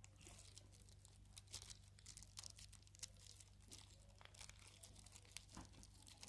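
Faint crinkling and crackling of a plastic wrapper being peeled off a set of earphones, a scatter of short irregular crackles.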